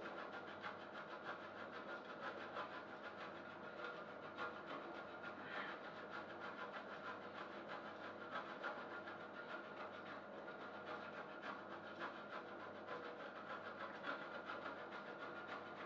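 Halloumi cheese being grated on a stainless steel box grater: a continuous run of faint, rapid rasping strokes.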